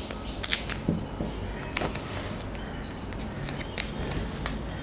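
Scattered small clicks and crinkles of micropore surgical tape and paper being handled and wrapped around a packet of fenugreek seeds.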